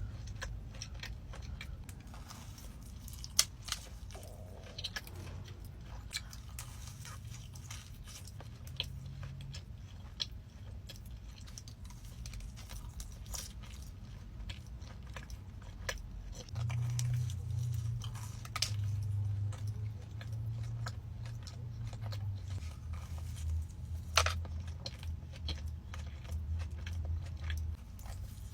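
Close-miked chewing and biting of food, with sharp crunches scattered throughout and a low rumble underneath that grows louder past the middle.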